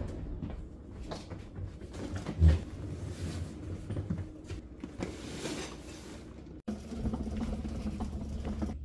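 Luggage being handled and loaded onto a hotel luggage cart: rustling fabric bags and knocking hard-shell suitcases, with one heavy thump about two and a half seconds in. Partway through, a steady low hum comes in under the handling noise.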